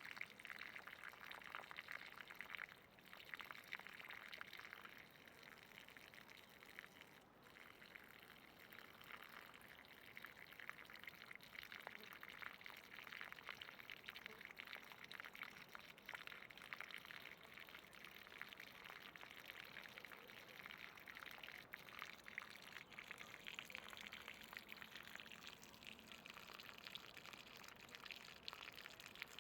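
Faint, steady running water: a thin stream pouring and trickling without a break.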